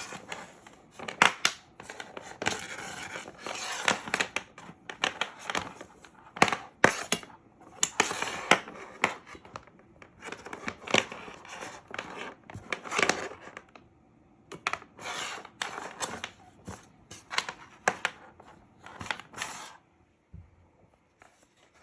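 Handling noise of charging cables and their connectors being fiddled with and plugged in: irregular sharp clicks mixed with scraping and rustling, dying away about twenty seconds in.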